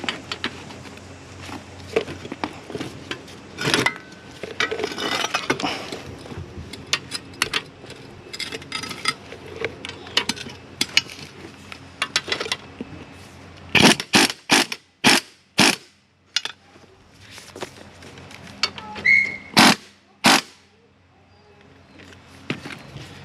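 Hand tools working on a car strut assembly: metal clinking, knocking and scraping as vise grips hold the strut shaft and the top nut is worked loose, with a quick run of loud sharp clicks a little past the middle and two more near the end.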